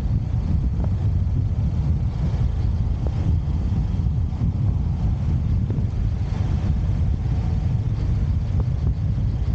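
Motorcycle on the move: a steady low rumble of wind on the microphone mixed with engine and road noise.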